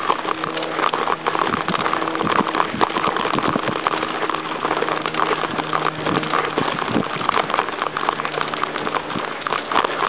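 Continuous rustling and crackling handling noise from a handheld camera carried by someone moving on foot up a paved slope, full of small irregular clicks, with a faint steady low hum underneath.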